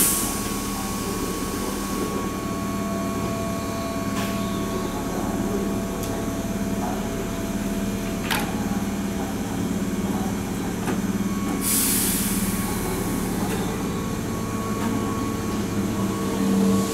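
Keihan 5000-series electric train standing at the platform with its onboard equipment humming steadily. There is a short sharp air hiss at the start, light knocks about 4 and 8 seconds in, and a longer hiss of compressed air about 12 seconds in.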